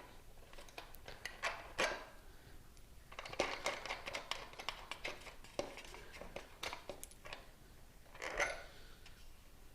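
Quiet handling noises from hands working on motorcycle parts and wiring: scattered small clicks and taps, with a longer rustle near the end.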